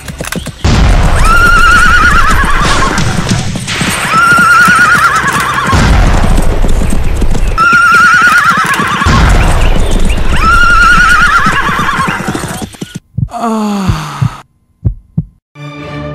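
Horse neighing four times, about every three seconds, over a rapid thudding of hoofbeats. Each neigh is a high wavering whinny that falls away.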